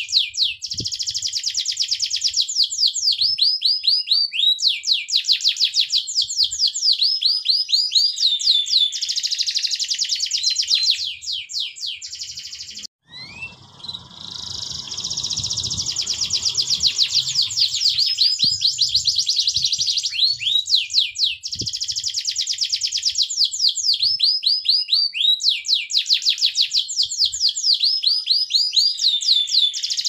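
Domestic canary singing long, rapid rolling trills of repeated downward-sweeping high notes. The song breaks off abruptly about halfway through and starts again a couple of seconds later.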